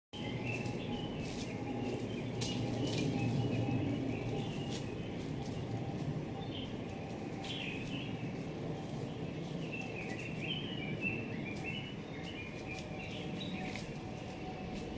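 Forest ambience: birds chirping and calling throughout, over a steady low background noise with scattered light clicks.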